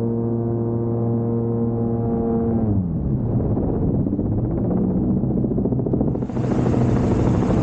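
Rotax engine and pusher propeller of a Dominator gyroplane running at a steady pitch, then dropping in pitch about two and a half seconds in as the engine is throttled back, leaving a lower, rougher running sound. A rush of wind hiss comes in near the end.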